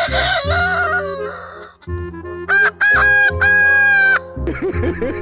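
A rooster crows with a wavering call for about the first second and a half. After a short gap a bird gives loud, flat-pitched calls, three in a row, near the middle. Background music with a steady beat runs underneath.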